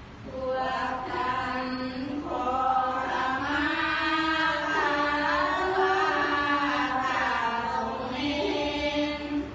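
A group of voices chanting together in unison, holding long, drawn-out notes that glide between pitches: Buddhist chanting.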